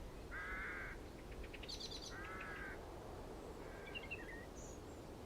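Faint bird calls: two drawn-out calls about two seconds apart, with a quick run of ticking notes between them and a few short chirps later on.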